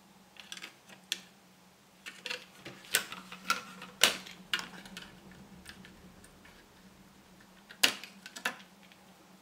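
A screwdriver prying the 40-pin Ferranti ULA chip up out of its socket on a ZX Spectrum circuit board: irregular sharp clicks and snaps of metal on the pins and socket. The loudest snaps come about four seconds in and again near eight seconds, as the chip works loose.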